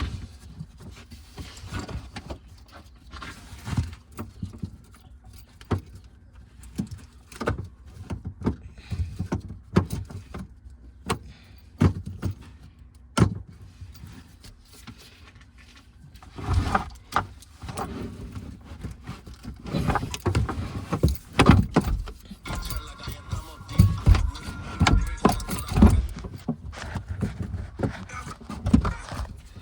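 Scattered clicks, clanks and knocks of hand tools and parts being handled while a car battery is swapped, with heavier thumps in clusters during the second half.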